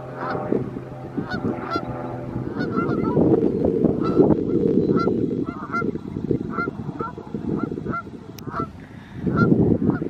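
A flock of geese honking: short, repeated calls, about one to two a second, over a low rushing noise that fades for a moment near the end.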